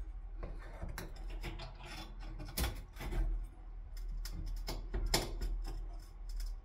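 Irregular scraping, rubbing and sharp clicks of a stuck glass pane being pried and worked at in a door; the glass is held fast, seemingly stuck in with paint.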